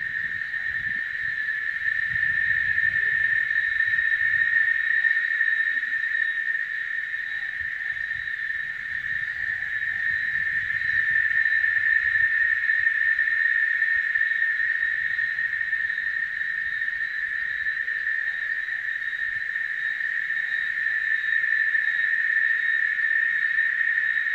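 Cicadas singing in chorus: one continuous, high, steady buzz that swells and eases slowly every several seconds.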